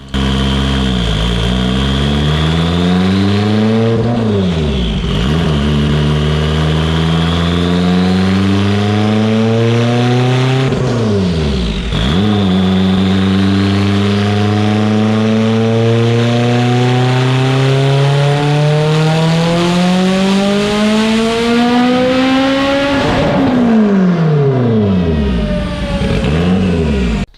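Mitsubishi Evo 8's built turbocharged 2.0-litre 4G63 four-cylinder making a full-throttle pull on a chassis dyno on an ethanol fuel blend. The revs climb, drop sharply twice as it shifts up, climb through the top of the last gear, then fall away as it lifts off near the end.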